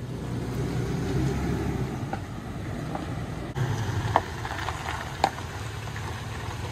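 Pickup truck driving slowly past on a gravel road: low engine running with tyres crunching over gravel, and a couple of sharp stone pops about four and five seconds in.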